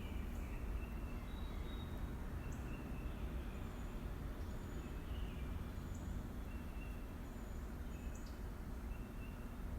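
Nature ambience: birds chirping with short high notes and quick falling calls, scattered every second or so, over a steady low background rumble.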